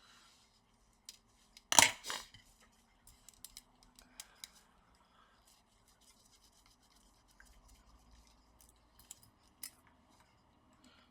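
Small screwdriver backing a screw out of a laptop's hinge area: faint scattered clicks and scrapes of metal and plastic, with one sharp knock about two seconds in.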